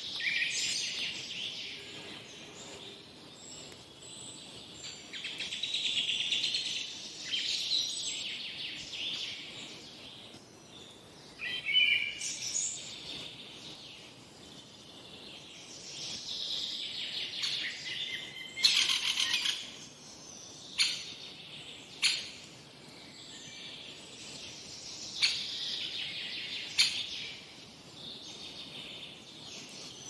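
Several birds calling and singing at once, overlapping high chirps and trills, with a few short, sharp single calls standing out in the second half.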